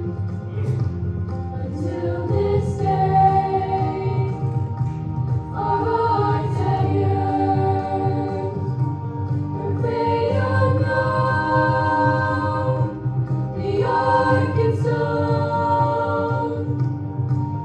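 A choir singing long held chords that change every few seconds, with fuller entries about six, ten and fourteen seconds in.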